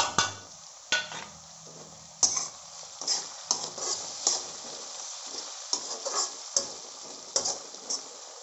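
Steel spatula stir-frying chopped vegetables in a kadhai over a light sizzle. A few sharp metal knocks come in the first two seconds, then quick repeated scrapes of spatula on pan, about two a second.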